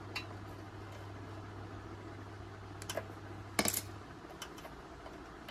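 Small metallic clicks and clinks of pliers and a wire terminal clip being handled, with a louder clatter about three and a half seconds in, over a steady low hum that stops about four seconds in.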